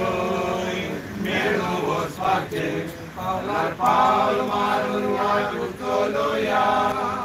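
A small congregation chanting a sung prayer together in phrases, with long held notes and short breaks between lines.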